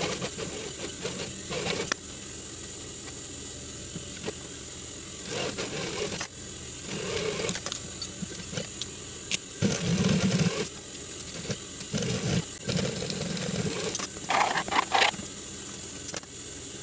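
Industrial sewing machine stitching binding onto a cap visor in a series of short runs, about seven, with a steady motor hum between them.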